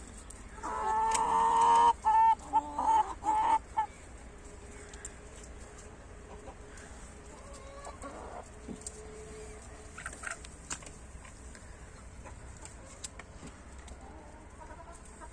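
Bresse chickens calling while they forage. About a second in, one bird gives a loud call: a long note and then a quick string of short ones that ends near four seconds. Softer, scattered clucks follow.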